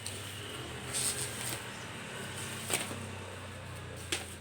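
Car jump starter's packaging being handled and opened: a few short sharp clicks and rustles, the sharpest about two-thirds of the way in and another near the end, over a steady low hum.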